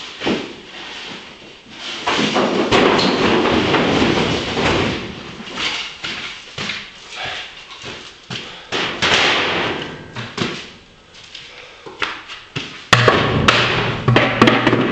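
Styrofoam fish boxes being tossed onto a pile: irregular thuds and scraping of foam against foam, with footsteps over debris. The loudest knocks come near the end.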